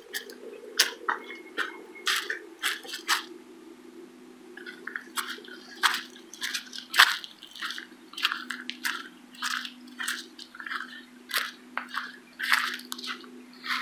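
Footsteps crunching on a trail of dry fallen leaves, one crunch about every half second at a walking pace.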